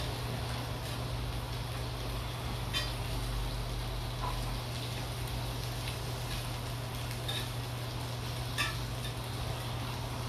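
Skewered pork belly and beef makchang (intestine) sizzling on a hot griddle pan with a steady hiss, over a low steady hum. A few light clicks come from metal utensils against the pan and meat, one near 3 seconds in and one near 9 seconds in.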